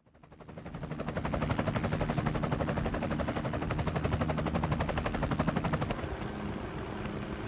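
Helicopter rotor beating in a rapid, even pulse as it fades in. About six seconds in the pulsing gives way to a steadier aircraft engine noise with a faint high whine.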